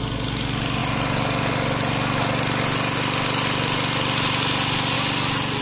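Portable engine-driven water pump running steadily at a constant speed, pumping water out of the pool through its hose.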